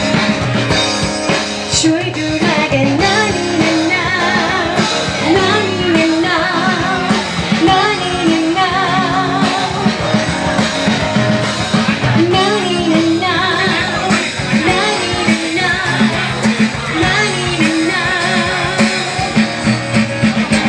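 Thai pop-rock song with a melody sung over guitar and a drum kit.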